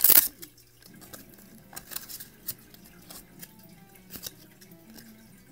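Cardboard trading cards being flipped and slid over one another by hand. A loud swish comes right at the start, then scattered light clicks and slides.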